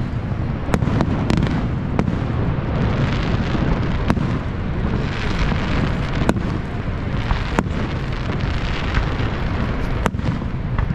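Fireworks bursting: scattered sharp bangs and cracks, about eight in all, over a steady rushing noise.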